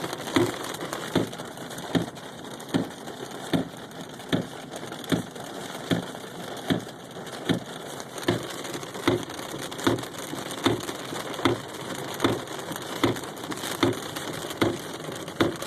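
Car windshield wipers sweeping fast, with a thump at each stroke about every 0.8 seconds, over steady rain beating on the car, heard from inside the cabin.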